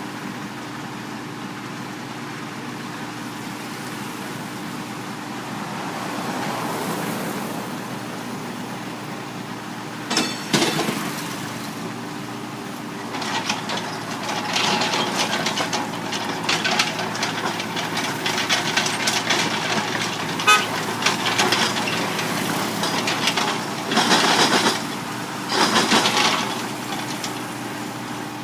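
Heavy construction machinery at work: an engine running steadily, with a sharp knock about ten seconds in. From about halfway on, a run of rattling and clanking metal comes in bursts, loudest near the end.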